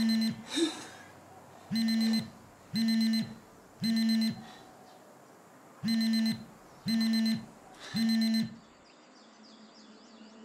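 Wake-up alarm beeping: buzzy half-second beeps about once a second, in groups of three with a short pause between groups, cutting off about eight and a half seconds in.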